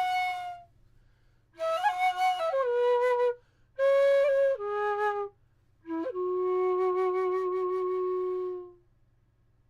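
Bansuri bamboo flute in A, about 23.5 inches long, played solo and dry with no effects: three short phrases that step downward in pitch, separated by brief pauses, the last settling on a long held low note.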